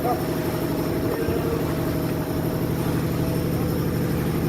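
A vehicle engine idling, a steady low drone that holds level.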